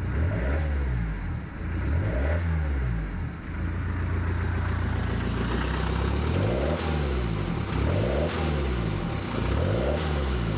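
BMW diesel engine running with no exhaust fitted past the catalytic converters, idling and being revved in about five short blips that rise and fall in pitch. The open exhaust gives a loud, deep note.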